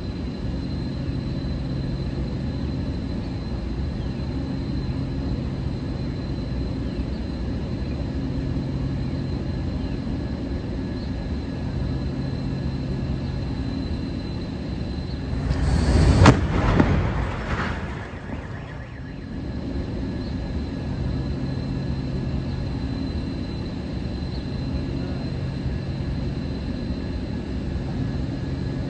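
The 285-foot steel stack hits the ground about halfway through: one loud crash with a sharp crack at its peak, dying away over about a second. A steady low hum with a thin high whine runs underneath.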